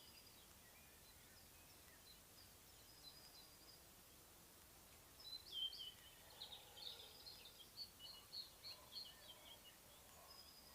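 Faint countryside birdsong: a few thin, distant whistles, then about halfway through a songbird sings a quick run of chirping notes for about four seconds, with a fainter lower-pitched song underneath.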